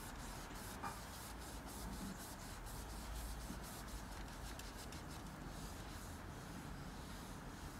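Cloth rubbing creamed beeswax into a painted wooden chair, heard as faint repeated rubbing strokes.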